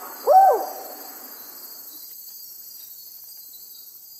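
Black-and-white owl giving one loud hoot that rises and then falls in pitch, about a third of a second in, over a steady high chorus of night insects.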